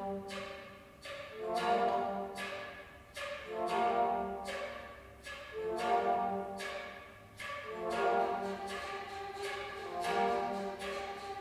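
Flute ensemble of concert flutes, alto flute and bass flute playing a rhythmic groove piece in chords. The short phrases come about every two seconds, each starting with a sharp attack, over low bass-flute notes.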